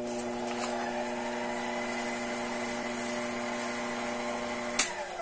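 Small benchtop lathe running steadily with a 3D-printed plastic plug spinning on its spindle while the plug is hand-sanded. Near the end a click as it is switched off, and the hum starts to fall as the motor winds down.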